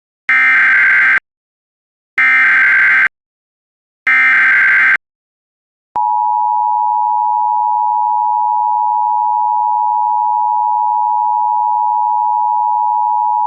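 Emergency Alert System signal: three bursts of SAME digital header tones, each about a second long, encoding a local area emergency alert. About six seconds in, the steady two-tone EAS attention signal (853 and 960 Hz) begins and is held.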